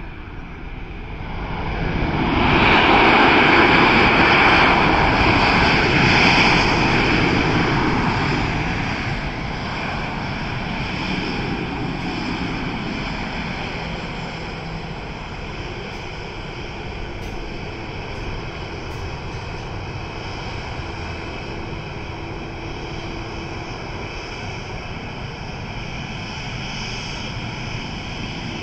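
Boeing 737-800's CFM56 turbofans swell to a loud rush about two seconds in during the landing rollout, typical of reverse thrust. The rush eases over several seconds to a steady whine as the jet slows and taxis.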